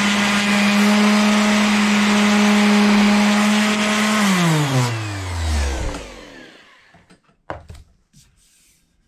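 Corded random orbit sander running steadily while sanding a flat metal bar, then switched off about four seconds in and spinning down with a falling whine over about two seconds. A single short knock follows near the end.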